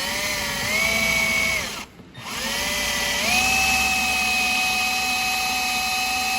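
Power drill boring a pilot hole into a broken, fairly soft bolt for a screw extractor. The motor whine rises in pitch under the trigger, stops briefly about two seconds in, then starts again, steps higher and runs steadily until near the end.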